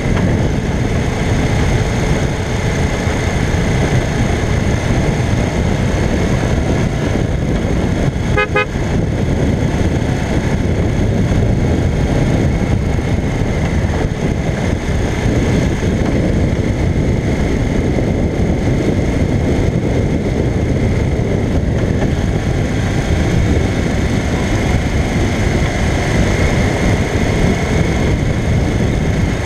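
1985 Honda CBX 750P's inline-four engine running at cruising speed, under heavy wind and road rush. A brief horn toot sounds about eight seconds in.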